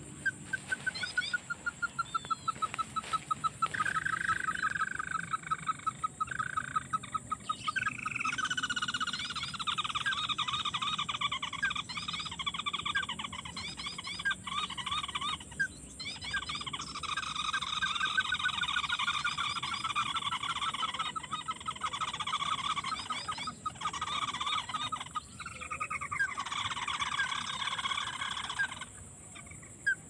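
Ruddy-breasted crakes calling: long trills of rapid notes, the first falling slowly in pitch, then several trills overlapping almost without a break until they stop near the end.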